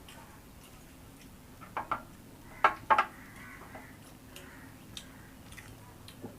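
Eating at a meal: a handful of sharp clicks and clinks, the loudest about two to three seconds in, with soft scattered ticks between, as of a plate being handled and food being eaten.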